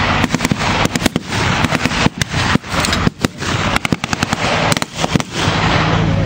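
Blank gunfire from rifles and machine guns, a dense irregular rattle of overlapping shots, with a steady low engine drone underneath.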